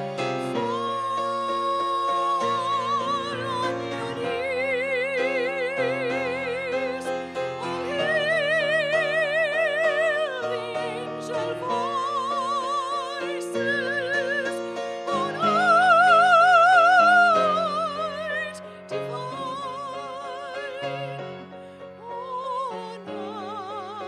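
A woman singing a solo in a classical, operatic style with wide vibrato, holding long notes over piano accompaniment; the loudest is a high held note about two-thirds of the way through.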